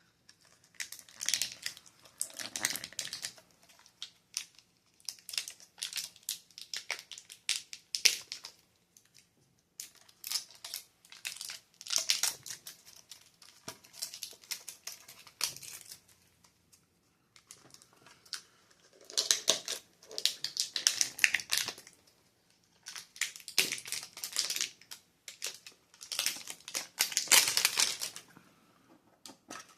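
Plastic wrapping crinkling and crumpling in irregular bursts of a second or two as a trading-card mini tin is unwrapped by hand.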